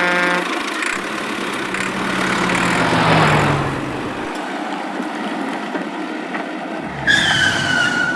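Cartoon toy-vehicle sound effects: an engine running, then driving noise that swells about three seconds in with a low tone sliding down as it fades. Near the end, a high squeal falls a little in pitch for about a second.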